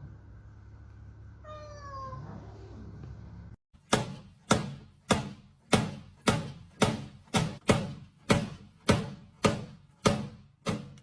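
A cat gives one faint meow falling in pitch. Then comes an even series of sharp struck sounds, about two a second, each ringing briefly away.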